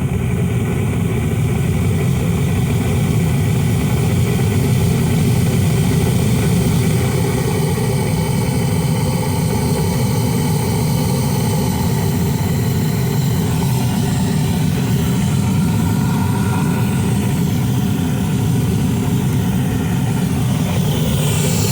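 Homemade propane venturi burner running at 10 psi through a 3/32-inch orifice: a loud, steady roar like a jet engine.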